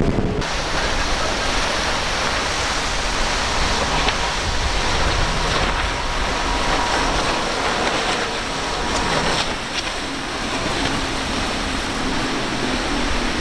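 Center-console boat with twin outboard engines running fast through choppy inlet water: a steady rush of spray and breaking waves over a low engine drone.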